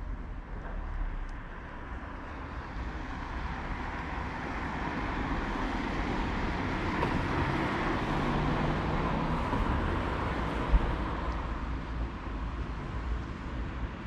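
A car driving past on the road, its tyre and engine noise swelling to a peak around the middle and then easing off, over a steady low rumble. A single sharp knock sounds about three-quarters of the way through.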